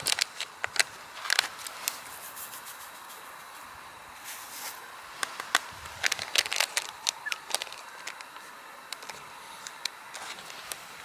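Scattered sharp clicks and crackles over a steady faint hiss, in two clusters: one at the start and another around the middle.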